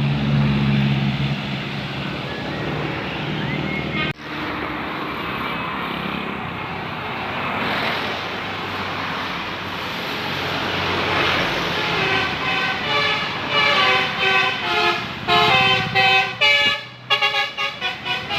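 A bus's telolet horn, a set of multi-tone air horns, plays a tune of short notes that change in pitch. The tune starts about two-thirds of the way in and grows choppier near the end. Steady engine and traffic noise runs underneath; before the horn, it is broken by a sudden cut a few seconds in.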